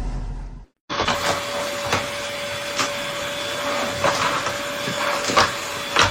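A low rumble that cuts off abruptly, then a steady motor hum with one held tone, with irregular sharp clicks or knocks over it.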